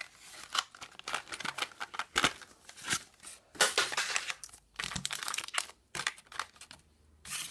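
Plastic blister packaging crinkling and its cardboard backing tearing as the pack is opened by hand, in irregular crackles and rips that stop briefly near the end.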